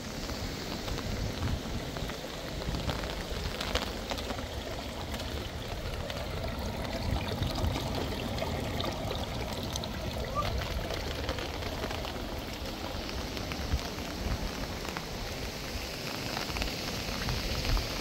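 Steady rain falling, with scattered sharper drop hits.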